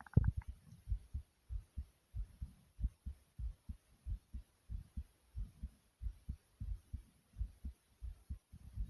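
Human heartbeat heard close up: regular low thumps, about two or three a second, raised by exercise (air boxing). A louder thump comes right at the start.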